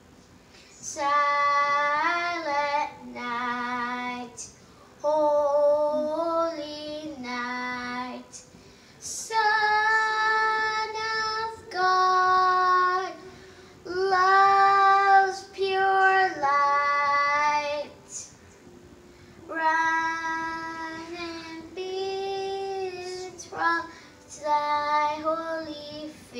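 A young girl singing a Christmas carol solo and unaccompanied, in slow phrases of long held notes with short pauses for breath between them.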